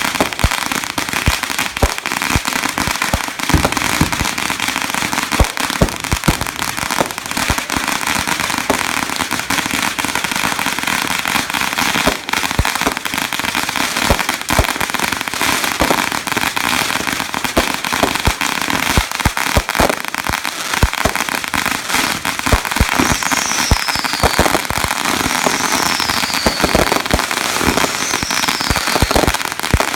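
Fireworks going off without pause: dense crackling and popping with many sharp bangs. In the second half a high falling whistle repeats about every two and a half seconds.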